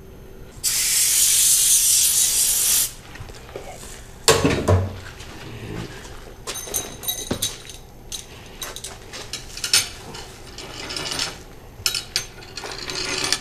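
A compressed-air blow gun hisses for about two seconds as air is blown through an Oldsmobile 455 engine pushrod to clear it out. Then come scattered light metal clinks and knocks as the parts are handled on the bench, the loudest a knock about four seconds in.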